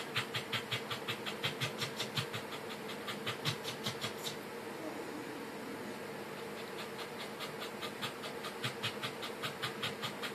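Corgi panting with its tongue out, fast and even at about four to five breaths a second. It pauses for about two seconds midway, then starts panting again.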